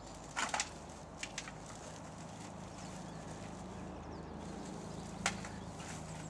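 Slow footsteps and a walking stick on a paved path, a few sharp taps spread out, over a steady low hum.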